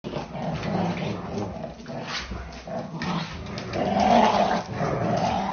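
A dog growling in one long, wavering stretch, loudest about four seconds in.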